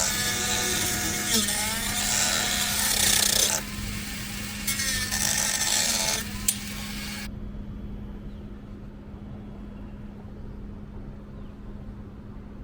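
A power tool working in two rough, rasping bursts with a click after the second, then stopping about seven seconds in, leaving a quieter steady low hum.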